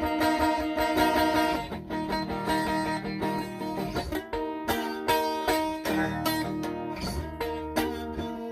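Music played on a plucked string instrument, with a run of ringing notes.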